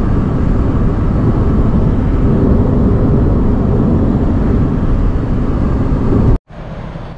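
Steady, loud road and engine noise heard from inside a passenger minivan driving along a highway. It cuts off suddenly about six seconds in.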